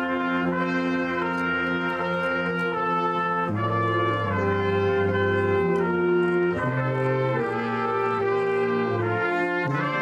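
Live brass band playing a slow tune in long held notes, trumpets over a low bass line.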